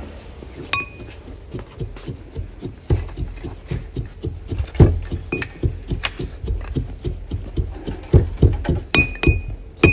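Pestle pounding cumin seeds in a mortar: a run of quick dull thuds, about three a second from a few seconds in, with now and then a short ringing clink of the pestle against the mortar.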